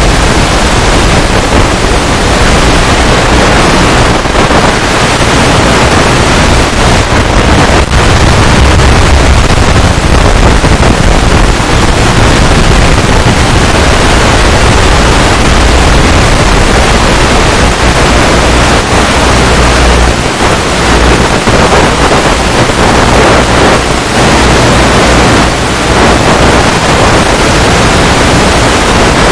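Loud, steady static hiss with no motor tone in it, the noise of the FPV video link's empty audio channel as recorded by the headset.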